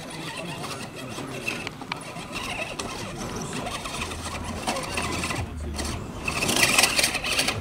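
RC scale crawler's electric motor and gear train whining as it claws up over rocks, turning harsh and crunchy near the end: grinding gears that the drivers put down to the pinion gear.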